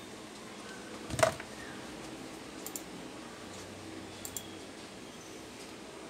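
A single sharp knock about a second in, then a few faint clicks, over a steady low hum.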